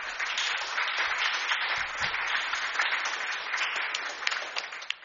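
Audience applauding, a dense patter of many hands clapping that thins to a few separate claps near the end.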